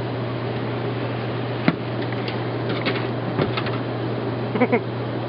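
A steady low mechanical hum runs under scattered knocks and clicks from large dogs moving about on a wooden deck. Two short pitched squeaks come near the end.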